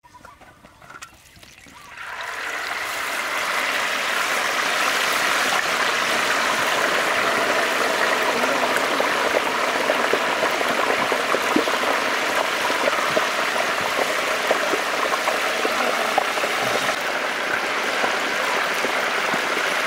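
Liquid boiling steadily in a large wok, a constant rushing, bubbling water sound with faint scattered pops, setting in about two seconds in.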